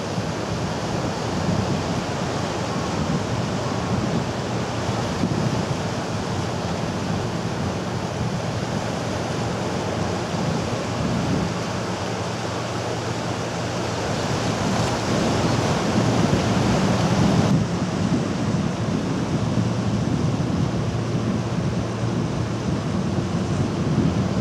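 Sea surf washing over and around shoreline rocks: a steady rushing of breaking water. Near the end a faint steady hum joins in.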